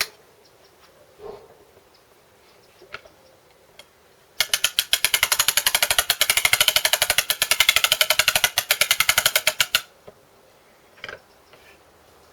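Wind-up spring starter on a 1964 Briggs & Stratton mower engine being wound by hand: a fast, even ratcheting of sharp clicks for about five seconds in the middle, winding the spring before the engine is released to start, with a few scattered handling clicks before and after.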